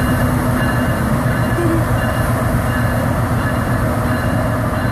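CSX freight train's diesel locomotive running on the track, a loud steady rumble with a low engine drone.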